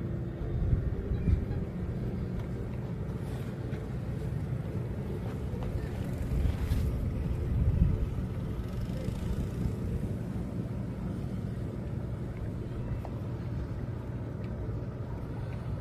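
A boat engine running steadily with a low hum, with gusts of wind buffeting the microphone about a second in and again around six to eight seconds in.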